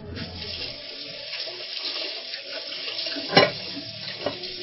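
Kitchen tap running steadily into the sink, with a sharp clunk of a utensil or dish about three and a half seconds in and a lighter knock near the end.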